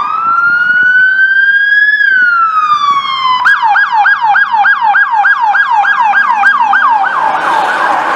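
Electronic siren on a sheriff's patrol SUV. It starts with one slow wail that rises for about two seconds and then falls, and about three and a half seconds in it switches to a fast yelp of about four sweeps a second. A rush of road noise grows under the siren near the end.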